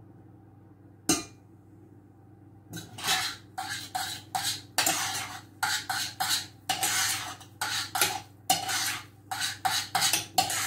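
A spoon scraping round the inside of a metal saucepan, stirring vegetable stock into dry couscous. One sharp clink comes about a second in; from about three seconds in there is a quick run of scrapes and knocks, two or three a second.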